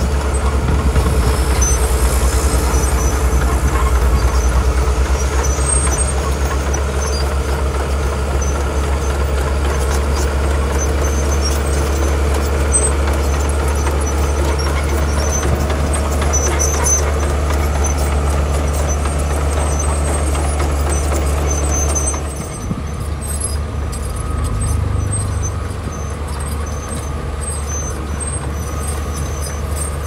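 Komatsu D41E crawler bulldozer's diesel engine running steadily under load with a deep drone as its blade pushes gravel; about two-thirds of the way in the drone eases and the sound becomes a little quieter.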